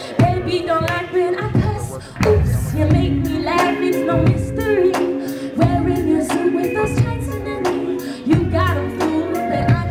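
A woman singing a pop song live into a microphone over a DJ's backing track with a steady beat and heavy bass.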